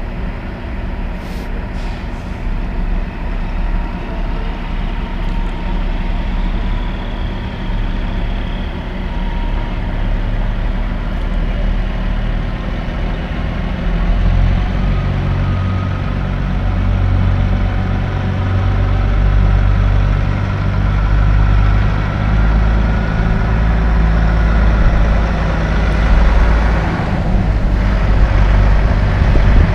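Western Star semi truck's diesel engine running as the truck pulls across the lot toward the listener, a steady low drone that grows louder from about halfway through.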